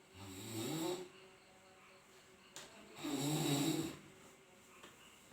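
A person snoring loudly: two snores, each about a second long, one at the start and one about three seconds in, with quiet breathing between.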